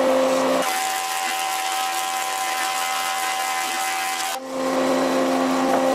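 Thickness planer running. From about half a second in until just past four seconds a board feeds through and the knives cut, turning the steady machine hum into a rushing cutting noise. It then drops back to the plain running hum.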